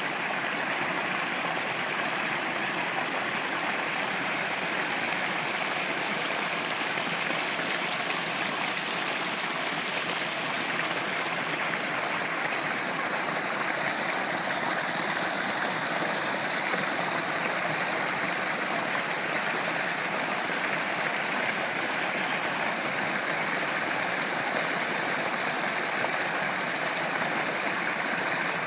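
A river or stream flowing over stones: a steady rush of running water with no breaks.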